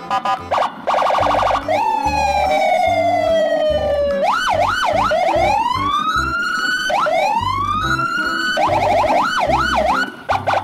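Electronic siren sounds follow one another: a fast pulsing tone, then a long falling wail from about two seconds in, then rapid up-and-down yelps and rising wails, and a fast pulsing tone again near the end. A low beat runs underneath.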